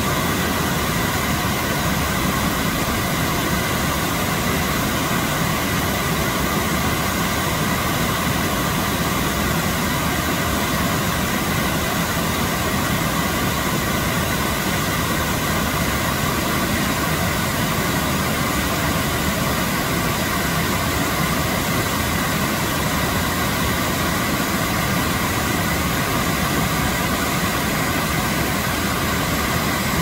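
A mountain stream rushing over a low rock cascade in a steady, loud, unbroken roar of white water, running high after heavy rain.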